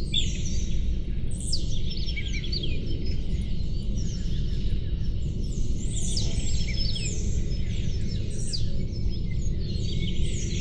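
Many small songbirds chirping and twittering over one another, with quick high calls and short downward-sweeping notes, over a steady low background noise.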